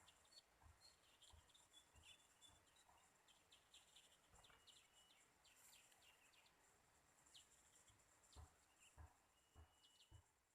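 Faint, quick high chirps of a small bird, repeated throughout, with one longer thin whistle near the end, over a steady high hiss. Several soft low thumps come in the second half.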